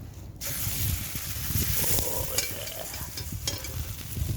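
Burger patty sizzling in a hot pan; the sizzle starts suddenly about half a second in, as it goes into the fat, and keeps going steadily.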